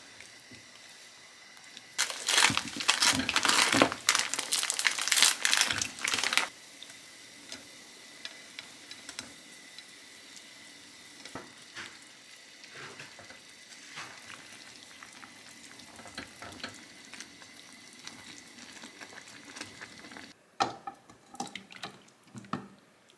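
Spicy red broth boiling in a frying pan and stirred with a spoon, with a loud stretch of sizzling and bubbling for about four seconds near the start, then quieter bubbling with light spoon taps. Near the end, a spoon scrapes the soup out of the pan into a bowl with a few clattering knocks.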